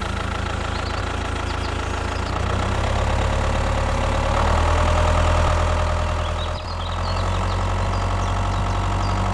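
An engine running steadily with a deep hum. It grows a little louder a few seconds in, then eases back, and cuts off suddenly at the end.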